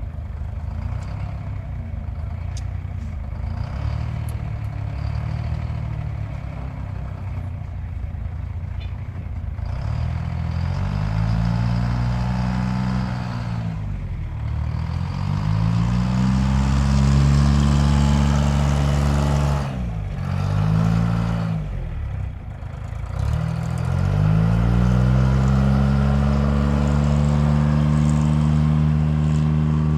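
Car engine in a repair shop idling with a few light taps of tools, then revved up several times, the pitch rising and dropping back between revs, the last rev held high near the end.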